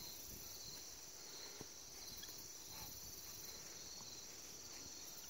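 Faint, steady high-pitched insect chorus, crickets trilling without a break.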